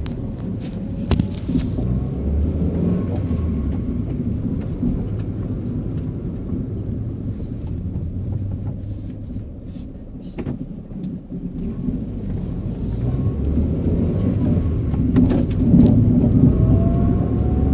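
Toyota Starlet driving, with a steady low rumble of road and engine noise and a few sharp knocks from the rear suspension over bumps. The knocking comes from a worn rear passenger-side shock absorber, which replacing the shock cured.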